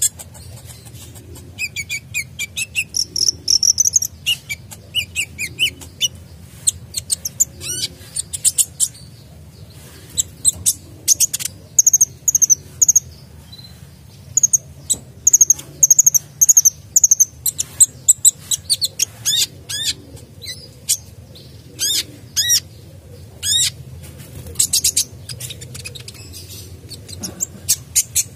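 Male kolibri dacok (a sunbird) singing hard: a busy run of rapid high chirps, fast trills and sharp whistled notes in bursts with brief pauses. The song is full of varied phrases.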